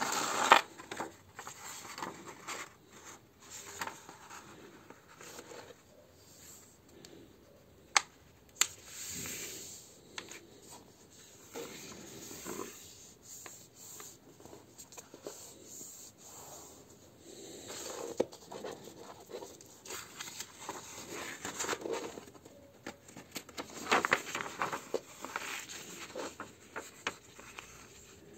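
A sheet of paper being folded by hand on a wooden table: irregular rustling, sliding and creasing as it is smoothed and pressed flat, with two sharp clicks about eight seconds in.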